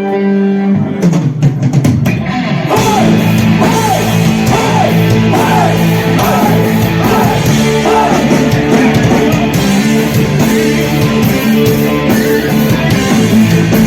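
Live rock band with electric guitars and drum kit. A held guitar chord opens, then about a second in the drums and full band come in and play on loudly.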